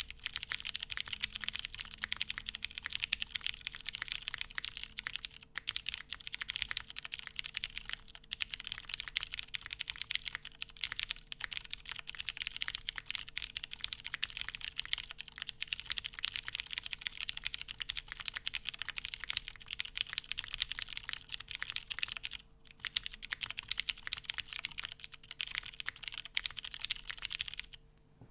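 Fast, continuous typing on a Baionlenja Bias V2 mechanical keyboard with lubed Cherry MX White switches, light 45 g springs, GMK keycaps and a full polycarbonate plate, giving a dense stream of key clacks. There is a brief pause about four-fifths of the way through, and the typing stops just before the end.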